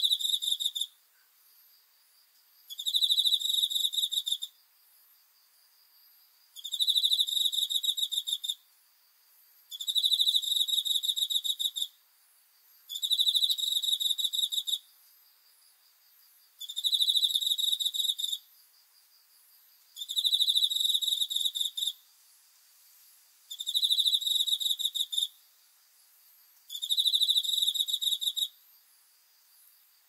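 Cricket chirping: a high, pulsing trill of about two seconds, repeated every three seconds or so, with a faint steady high tone between the trills.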